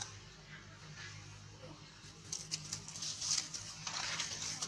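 Dry fallen leaves crackling and rustling underfoot as a monkey walks over them, in irregular crunches starting about halfway through, over a faint low steady hum.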